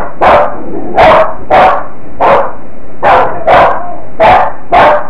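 A small dog barking over and over, about two barks a second, heard through a home security camera's microphone.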